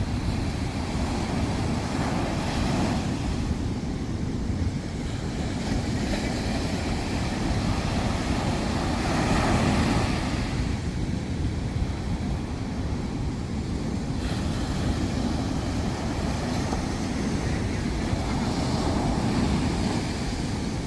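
Sea waves breaking and washing up a sand beach, swelling three times, under a steady low rumble of wind on the microphone.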